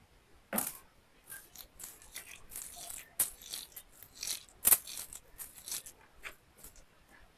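Close-up eating sounds: a run of short wet clicks and scrapes from chewing and handling food, with a few sharp taps. The loudest tap comes about four and a half seconds in.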